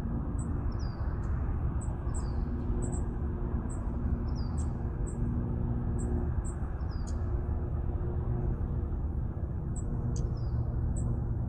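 A small bird chirping repeatedly, short high falling chirps about twice a second, pausing for a couple of seconds past the middle. Under it runs a steady low rumbling noise.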